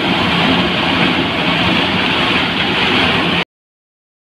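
Wheat threshing machine running steadily while stalks are fed in: a loud, even rush of noise over a low hum. The sound cuts off abruptly about three seconds in.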